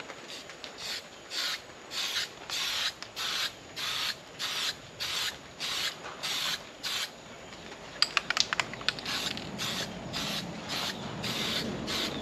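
Aerosol can of cold galvanizing spray paint hissing in short, repeated bursts, about two a second. About 8 seconds in there is a quick run of sharp clicks before the spraying carries on.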